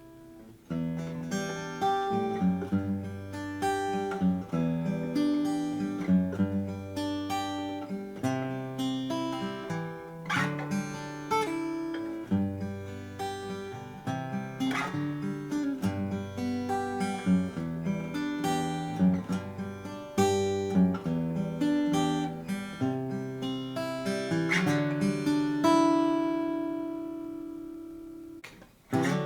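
A 1919 Martin 0-18, a small-bodied acoustic guitar, being played unaccompanied: a run of picked notes and chords with a few sharper strums. Near the end a chord rings and fades, then playing starts again.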